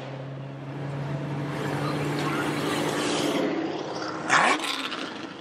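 Cars' engines running as they pull away from a rally start line, a steady low engine note. About four seconds in, a short loud blast as an engine revs up.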